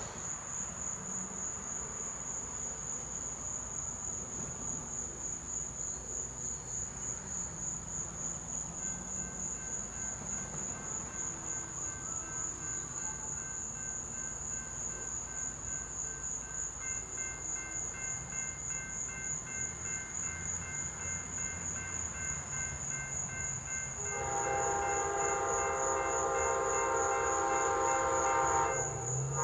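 Crickets chirping in a steady, fast-pulsing high trill. About 24 seconds in, the horn of an approaching Amtrak P42DC locomotive sounds one long chord blast, cutting off just before the end, over a faint low rumble of the train.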